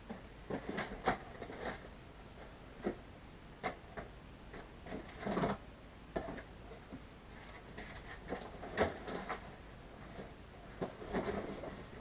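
Scattered knocks, clicks and rustles of someone rummaging through things out of view, fairly quiet, with a longer, fuller knock-and-slide about five seconds in and a cluster of clatter near the end.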